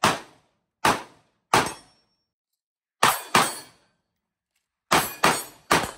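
AR-15-pattern carbine firing eight semi-automatic shots in short strings: three spaced under a second apart, a quick pair, then three more near the end.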